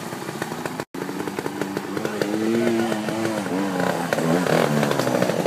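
Trials motorcycle engine revving up and down, its pitch rising and falling as the rider works the throttle; the sound cuts out for an instant about a second in.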